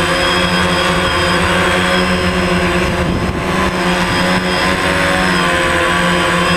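DJI Phantom quadcopter's four electric motors and propellers buzzing steadily, heard up close through the camera mounted on the drone. About three seconds in, the pitch wavers and dips briefly.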